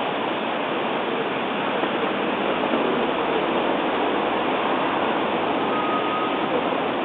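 Steady rushing noise of water washing past the hull of an RC model container ship under way, picked up by a camera riding on its deck.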